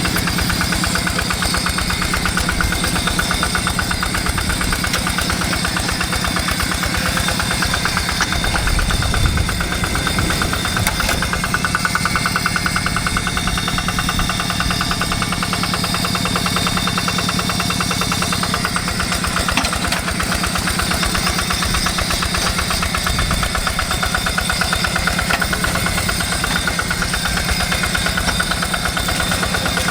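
Hand tractor's single-cylinder diesel engine running steadily while plowing a rice paddy, with a fast, even knocking beat.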